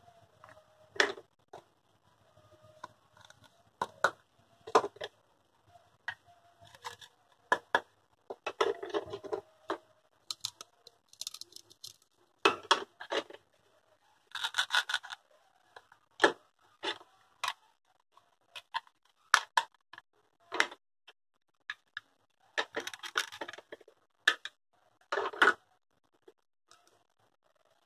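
Hard plastic toy fruit pieces being handled and knocked together: scattered sharp clicks and clacks, with a few longer scratchy rubbing stretches of a second or two.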